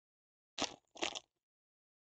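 Foil trading-card pack wrapper being torn open: two short crinkling rips, about half a second in and again about a second in.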